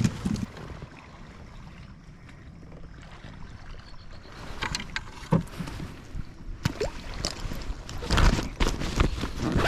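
Steady low water and wind noise on a kayak, with scattered knocks that become a busy run of knocking and rustling near the end.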